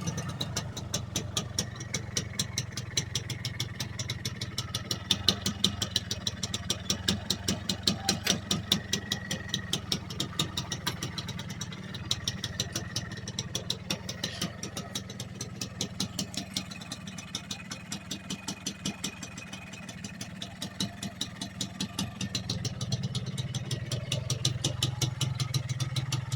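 Honda Invicta motorcycle's single-cylinder engine idling with a steady, rapid exhaust beat; it softens about two-thirds of the way through and grows louder again near the end.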